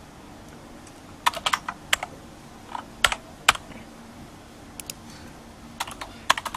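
Typing on a computer keyboard: short clusters of key clicks with pauses between them.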